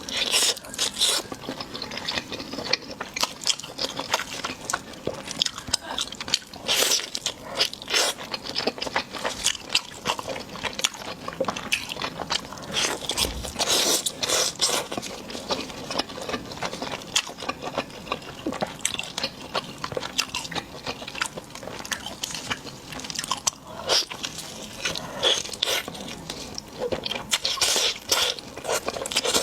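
Close-miked eating: crunchy food being bitten and chewed, a dense run of irregular crisp crunches and scrapes.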